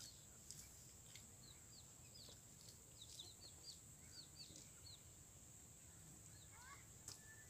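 Faint birds chirping: a quick run of short, high chirps from about a second in to the middle, then a brief rising call near the end, over a steady high hiss.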